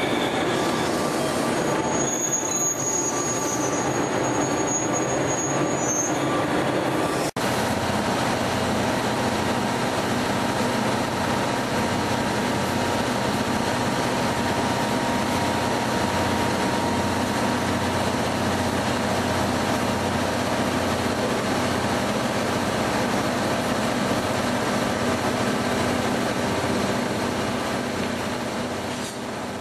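Sleeper express train running, heard from inside a passenger coach: a loud, steady rumble of wheels on rail with some wheel squeal. The sound breaks off for an instant about seven seconds in, then carries on and fades out at the end.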